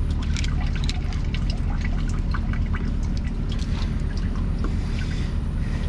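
Fillet knife slicing along the back and ribs of a hardhead catfish on a plastic cutting board: a steady run of small, irregular clicks and crackles.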